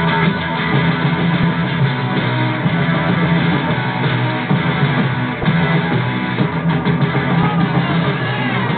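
Informal live band playing, led by strummed guitars.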